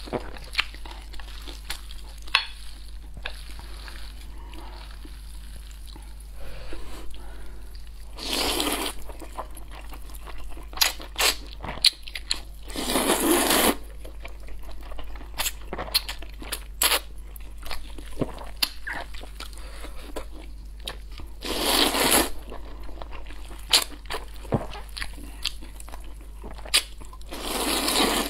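Noodles slurped into the mouth four times, each slurp a long sucking noise lasting about a second and the loudest thing heard, with wet chewing and small mouth clicks in between.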